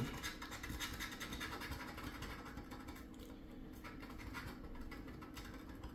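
A coin scraping the coating off a lottery scratch-off ticket on a tabletop: a faint, continuous run of rapid, light scratching strokes.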